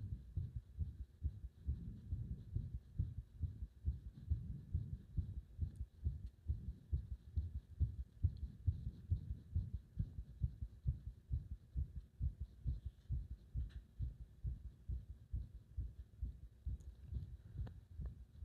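Human heartbeat recorded close up: low, dull beats repeating at a steady pace without a break.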